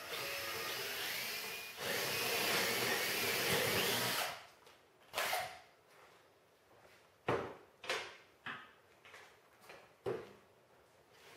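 Cordless drill boring a pilot hole through plywood, running steadily for about four seconds and louder from about two seconds in, then stopping. Several short knocks and clunks follow.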